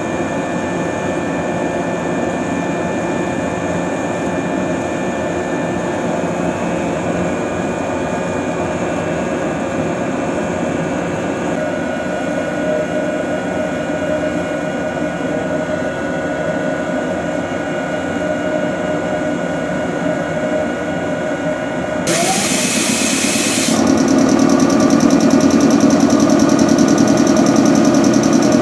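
Steady electrical hum from a stationary 113 series train car's underfloor equipment. About 22 s in there is a short burst of hissing air, then the car's MH80-C1000 electric reciprocating air compressor starts and runs louder with a fast, even beat.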